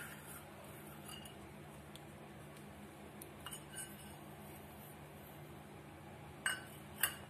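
A few light clinks of kitchen dishes against the counter, two sharper ones near the end, over a low steady hum.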